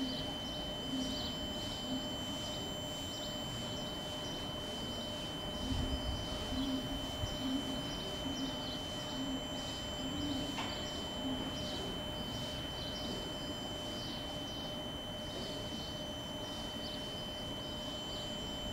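Stationary electric-hauled passenger train at a platform: a steady electrical whine and hum from its on-board equipment, with small birds chirping throughout and a short low rumble about six seconds in.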